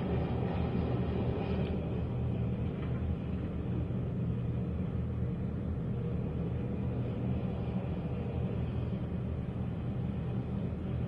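Steady low rumble of heavy engines running, heard from inside a vehicle's cab, as an excavator loads a haul truck.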